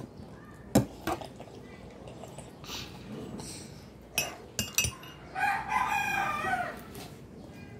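A rooster crowing once, a long call about five and a half seconds in. Before it, a metal spoon clinks a few times against a glass mug.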